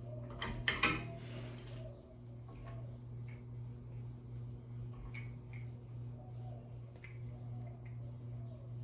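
Light metallic clinks and ticks of metal parts and tools being handled, with a quick cluster of sharp clinks about half a second in and a few single ticks later. A steady low hum runs underneath.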